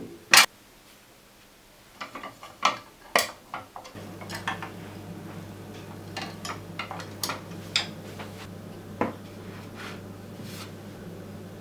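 Metal clicks and clanks of a hot sandwich maker being handled and shut, with one sharp loud click near the start. About four seconds in, a steady low hum starts and continues under occasional further clicks.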